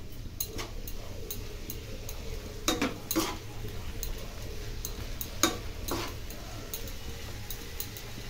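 Metal spatula stirring chopped tomatoes and grated carrot in a nonstick kadai, with irregular scrapes and clinks against the pan over a faint sizzle of the vegetables frying in oil.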